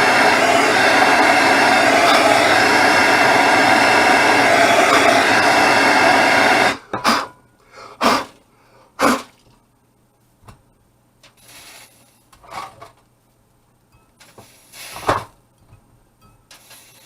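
Heat gun blowing steadily while heating a rusted, seized screw on a range top to break it loose, then switched off abruptly about a third of the way in. Several short, sharp sounds follow at intervals.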